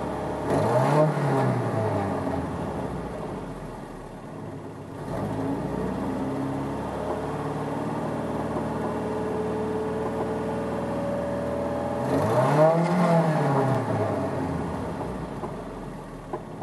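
Freshly rebuilt Nissan Z22 four-cylinder engine, with a Weber carburettor, headers, no catalytic converter and a Flowmaster muffler, idling a little high. It is revved up and back down about half a second in and again around twelve seconds, with a smaller blip around five seconds. It is heard from inside the cab.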